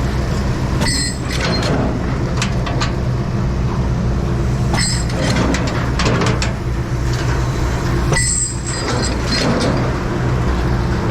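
A large engine running steadily, with sharp metal clinks and squeals from scrap metal being handled, about a second in, around five seconds in and again near eight seconds.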